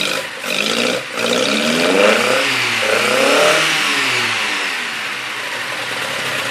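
Freshly rebuilt Datsun 160J Violet four-cylinder engine with twin sidedraft carburettors, revved by hand at the carburettor linkage. The revs rise and fall twice, then settle back to a steady idle for the last couple of seconds.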